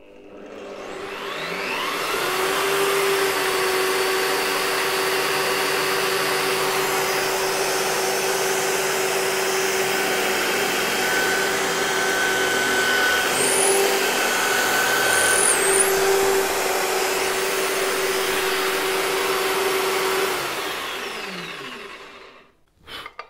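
Bosch benchtop drill press motor spinning up, running steadily while a 3 mm bit drills through a small plywood plate, then winding down near the end. It gives two short high squeaks partway through.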